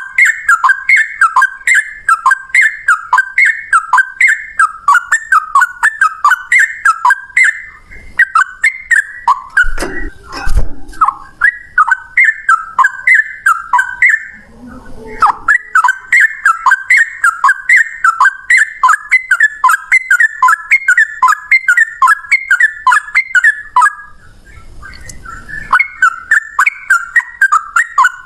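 Sooty-headed bulbul singing a long, rapid run of repeated whistled phrases, about three notes a second, pausing briefly about halfway through and again near the end. A short low rumble sounds under the song about ten seconds in.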